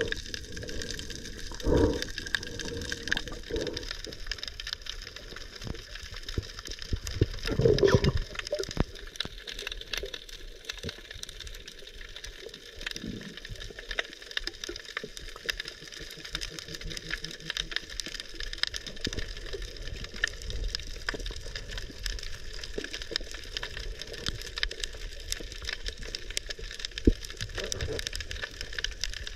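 Underwater reef ambience heard through a submerged camera: a dense, steady crackle of small clicks, with a couple of louder water swishes about two and eight seconds in.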